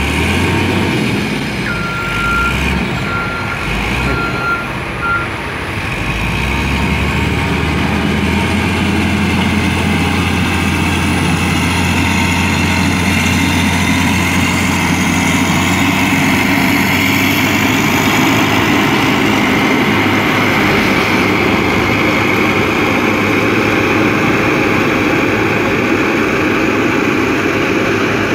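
Heavy diesel road-construction machinery running steadily, with a high-pitched reversing alarm beeping during the first few seconds.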